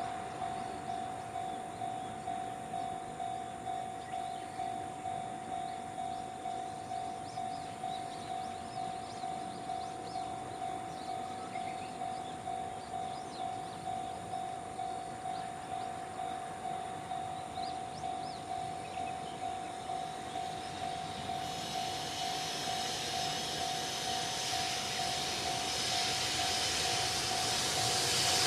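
Level-crossing warning bell ringing steadily at about two strokes a second. About two-thirds of the way in, the rumble and rail hiss of an approaching freight train hauled by an EF210 electric locomotive start to build and grow louder toward the end.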